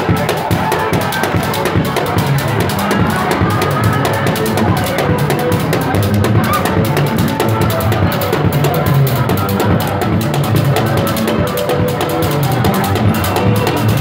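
A live drum kit played with sticks in a busy, steady beat, over a crowd singing.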